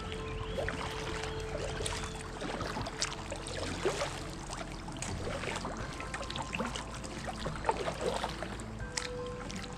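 Kayak paddling: water splashing and dripping off the paddle blades with each stroke, with a few sharp light knocks.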